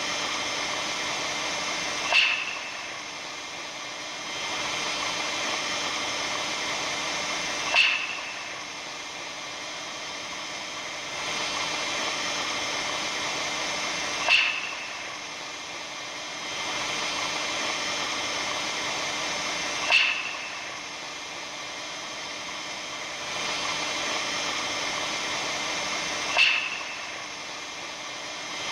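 Ambient track presented as the sound of the aurora borealis: a steady hissing drone with faint held tones. A sharp, ringing crackle cuts through about every six seconds, five times in all.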